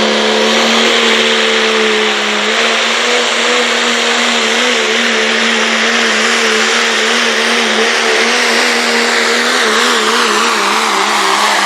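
Diesel pickup truck engine held at full throttle while pulling the sled: a steady high engine note over a loud rushing noise. The pitch wavers more and more from a few seconds in.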